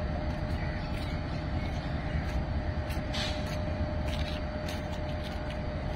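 GEU-40 diesel-electric locomotive engine running with a steady low rumble and a thin steady whine over it. A few light clicks come about three seconds in.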